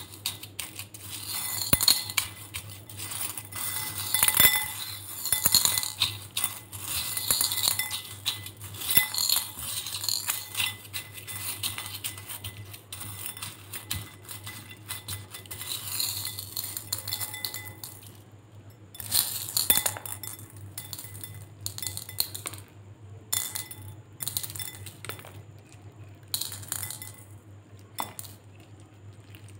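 Water beads and small plastic beads clicking and clinking against a glass bowl as fingers work through glossy slime. The clicking is dense at first and thins to scattered clicks later on.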